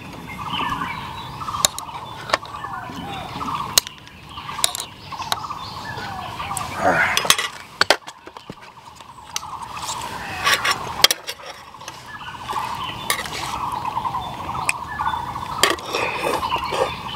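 Spoon and chopsticks clinking against a glass jar and a steel frying pan as food is served onto rice: scattered sharp clicks and taps. A continuous rapid trilling runs in the background.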